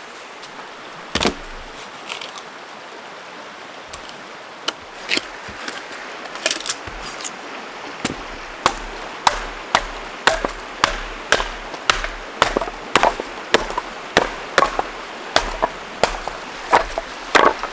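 Firewood being split into kindling with a knife: sharp wooden knocks, scattered at first and then a steady run of about two a second through the second half, over the steady rush of a river.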